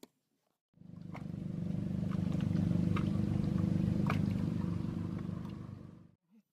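A small motorboat's engine running as it passes, growing louder over a couple of seconds and then fading away.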